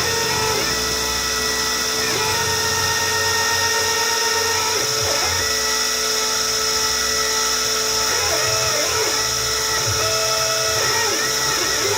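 Small CNC milling machine cutting a printed circuit board: the spindle keeps up a steady high whine while the stepper motors hum at pitches that step and glide up and down as the axes start, stop and change speed.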